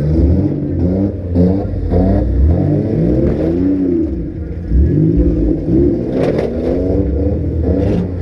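Several compact cars' engines revving hard and repeatedly, their pitches rising and falling over one another, with a few sharp knocks about six seconds in and again near the end.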